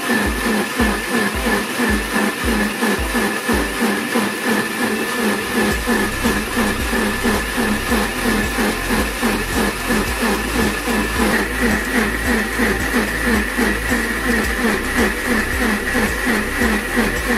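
Philips countertop blender running steadily, its motor whining and the smoothie churning in the jar. The whine steps up slightly in pitch about eleven seconds in.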